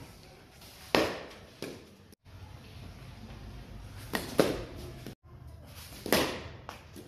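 Cricket being played: about five sharp knocks with a short echo, from bat hitting ball and the ball striking hard surfaces. The loudest comes about a second in, a pair follows in the middle, and one more near the end.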